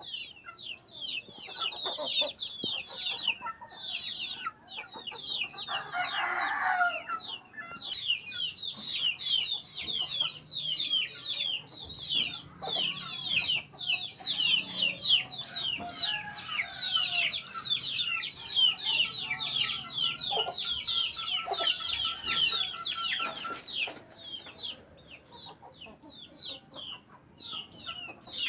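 Kampung chickens calling: a dense, steady stream of rapid high falling chirps, with a louder, lower call about six seconds in.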